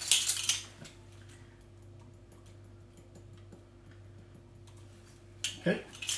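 Kitchen utensils clinking against a stainless steel bowl in a short clatter at the start and again near the end, with faint light ticks in between over a low steady hum.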